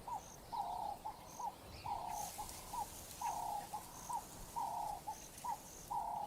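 A dove cooing over and over in a steady repeating phrase, a longer note followed by a short one, with faint high chirps repeating behind it.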